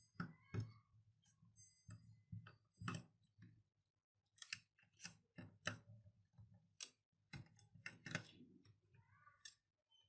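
Irregular sharp clicks and small metallic taps of a screwdriver turning out the screws of a 3.5-inch floppy disk drive's circuit board, with a quiet gap about four seconds in.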